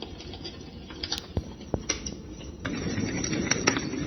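Small speaker playing a recording of a wood fire crackling: irregular sharp pops and snaps over a soft hiss. The crackling grows louder and fuller about two-thirds of the way in.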